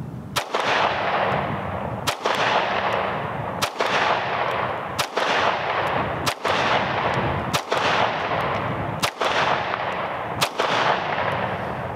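Ruger SR9c compact 9mm pistol firing eight shots, about one every one and a half seconds, each followed by a long, fading echo.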